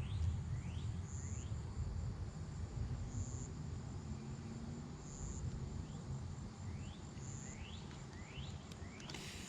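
Insects calling: a short, high buzz repeating about every two seconds, with faint, quick rising chirps in between, over a low, steady rumble.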